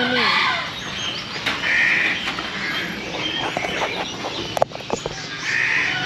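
Bird-market chatter: many caged birds chirping and calling at once, with a few sharp clicks from a wire cage being handled about four and a half seconds in.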